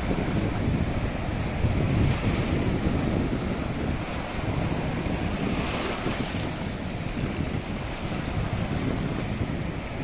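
Sea surf: small waves breaking and washing foam over a rocky shore, a continuous rushing that surges louder about two seconds in and again around six seconds.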